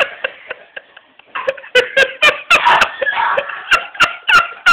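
Laughter in quick, sharp bursts mixed with harsh coughing and hacking from a person choking on a mouthful of dry ground cinnamon.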